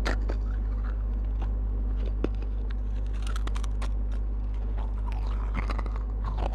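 Close-miked biting and chewing of a fired terracotta clay pot: irregular sharp cracks and gritty crunches as pieces are bitten off and ground between the teeth, with a loud crack right at the start and another about two seconds in.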